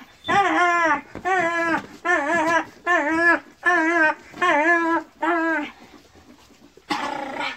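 Kangal puppy whining over and over as it is handled in play, short wavering cries about two a second that stop after about five seconds. A short noisy scuff follows near the end.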